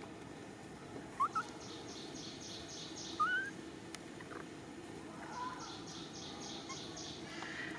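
Outdoor ambience with a few short rising chirp calls, two close together about a second in and a louder one about three seconds in, over a steady high, rhythmic pulsing at about five beats a second that stops and starts again.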